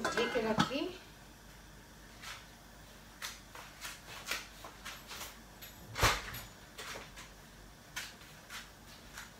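Lidded aluminium pot simmering on a gas hob: the lid gives irregular light clicks and taps as the liquid underneath bubbles, with one louder knock about six seconds in.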